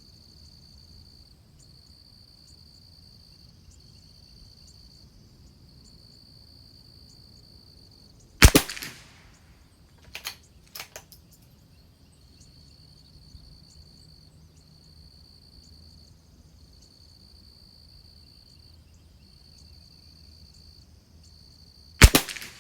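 Two .22 LR rifle shots from a Christensen Arms Ranger bolt-action rifle, about 13 seconds apart, each a sharp crack. A couple of quieter clicks follow the first shot by a second or two, the bolt being worked. Crickets chirp steadily in pulses throughout.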